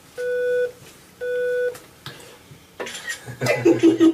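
Electronic test beeps played from a cochlear implant fitting computer: two identical half-second beeps about a second apart, each at one steady pitch. Near the end a voice comes in.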